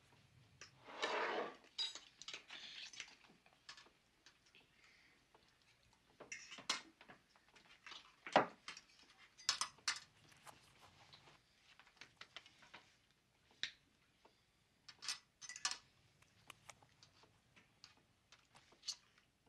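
Cutlery clinking and scraping on plates and a ceramic serving bowl as a spoon works through mashed potatoes at a dinner table: scattered, irregular light clicks with no rhythm, the sharpest a little past the middle.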